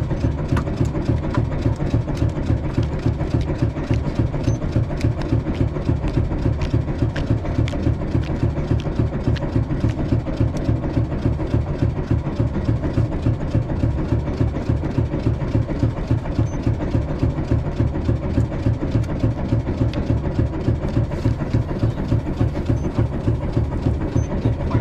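Fishing boat's engine idling, a steady rhythmic chugging.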